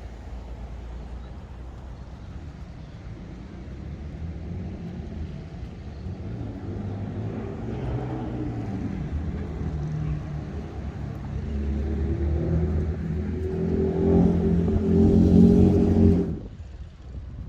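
A car engine on the street growing steadily louder as it comes close and revs, then dropping away abruptly near the end.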